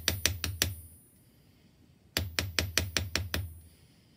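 Small hammer tapping sterling silver on a bare, unhardened 4140 steel bench block, cold-forging it: quick even strikes about six a second, a short run, a pause of over a second, then a longer run that dies away.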